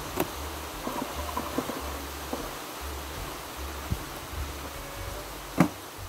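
Honeybees buzzing around an opened hive, with a few sharp knocks from hive equipment being handled, the loudest near the end.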